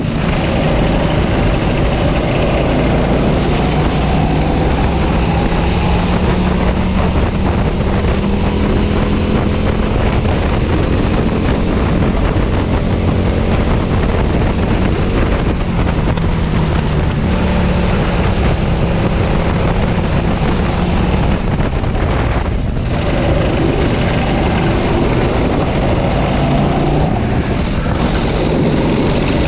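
Racing kart engine heard from onboard at race speed, its pitch climbing along the straights and dropping back into the corners, with wind buffeting the microphone.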